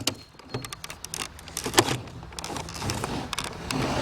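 Scattered clicks and knocks of hard plastic shredder parts being handled and pried at, as a broken piece is worked loose.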